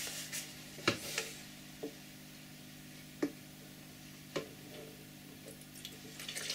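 A few light, separate clicks and taps of a plastic bottle being handled over a plastic tub. Near the end, liquid starts pouring from the bottle into the tub.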